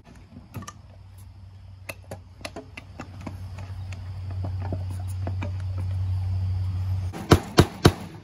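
Light knocks and taps on wood over a steady low drone that grows louder, then three sharp hammer blows on the wooden frame in quick succession near the end.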